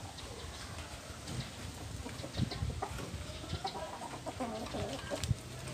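Scissors snipping chili pepper stems on a potted plant, a few short sharp clicks, with birds calling in the background.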